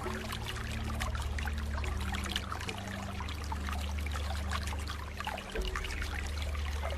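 Water trickling and splashing steadily, like a small stream. Soft sustained low music notes sit underneath and shift every couple of seconds.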